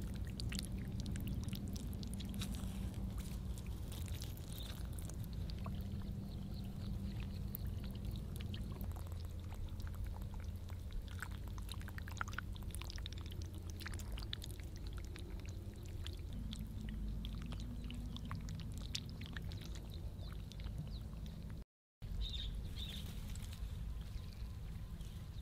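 Steady low rumble of wind on the microphone outdoors, with scattered faint wet clicks. The sound cuts out briefly near the end.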